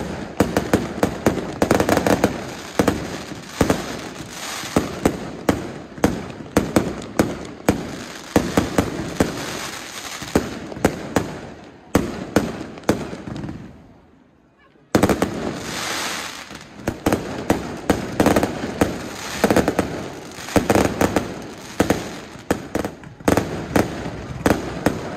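Fireworks display: a rapid run of sharp bangs and crackling from aerial shells and fountains. It dies down to a brief lull about fourteen seconds in, then starts again abruptly.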